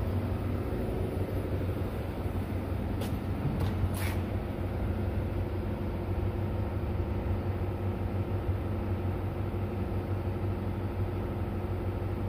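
A steady low mechanical hum with several steady tones above it. Two or three sharp clicks sound about three to four seconds in.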